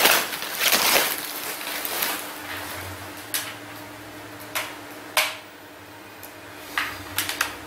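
Rustling of wrapping material for the first two seconds or so as the rifle is lifted out of its packing, then a few scattered light knocks and clicks of the rifle and box being handled, over a faint steady hum.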